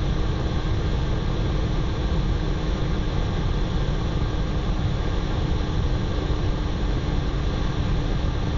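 Steady noise of Blue Angels F/A-18 jets and rushing airflow, picked up by a camera mounted on the outside of the jet's underside, with a constant low hum running through it.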